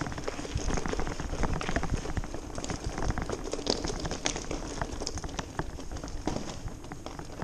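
Knobbly mountain-bike tyres crunching and crackling over loose stones and rubble, with the bike rattling over the bumps as it rolls along.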